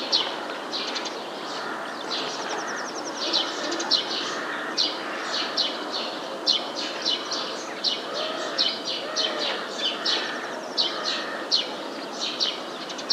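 Small songbirds chirping, short high chirps two or three times a second with a couple of quick trills, over a steady outdoor background hiss.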